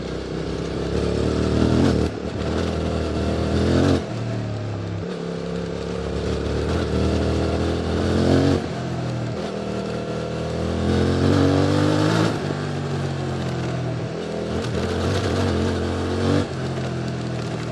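QJMotor SVT650X motorcycle engine through an Arrow Racetech slip-on exhaust, accelerating under throttle: its pitch climbs and falls back sharply five times.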